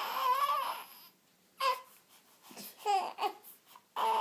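Newborn baby crying: one cry of about a second, then three short cries. The parents put her distress down to bad wind.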